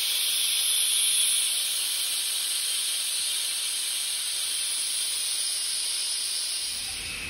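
Steam hissing steadily from an essential-oil distillation still charged with lavender, a high, even hiss that eases off slightly near the end.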